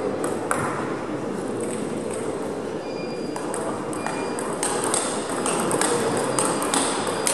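Celluloid-type table tennis balls being struck by rubber-faced paddles and bouncing on the table: sharp, ringing clicks. They are scattered at first and come in a quick back-and-forth rally from about halfway through.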